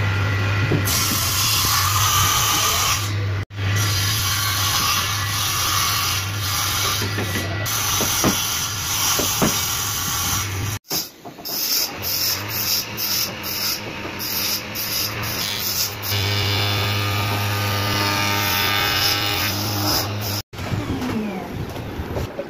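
Electric woodworking machinery, a table saw among it, running with a steady low hum and hiss. The sound breaks off abruptly a few times.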